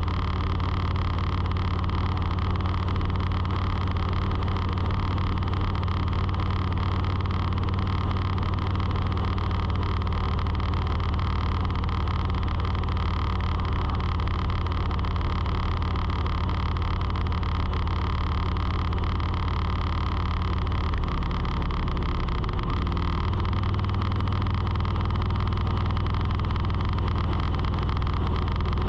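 Steady motor hum with a low, even pitch that shifts slightly about three-quarters of the way through.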